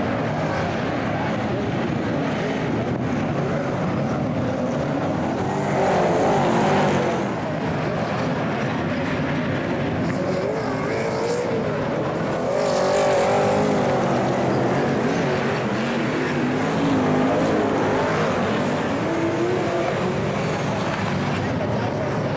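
A pack of super saloon race cars' V8 engines running together on a dirt oval, revs rising and falling through the turns. The sound swells louder as the cars pass close, about six, thirteen and seventeen seconds in.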